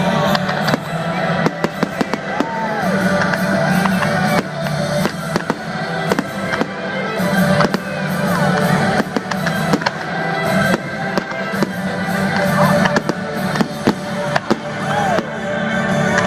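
Fireworks display: a constant run of bangs and crackles with a few whistles, over music.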